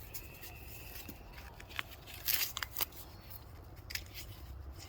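Dry corn leaves and husks rustling and crackling in short, scattered bursts as an ear of corn is handled, with the loudest crinkles about two and a half seconds in.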